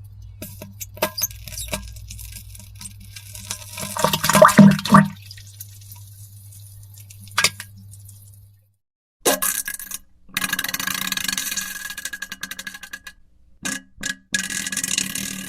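Wet diarrhea sounds and water splashing in a toilet bowl, in several separate clips with abrupt cuts and short silences between them; the loudest burst is about four to five seconds in.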